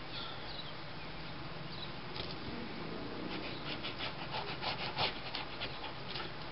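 Pencil drawing on stiff paper: steady scratching, then a run of short, quick back-and-forth strokes in the second half.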